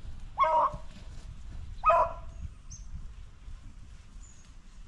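Hunting dog giving two short barks about a second and a half apart, over a low outdoor rumble.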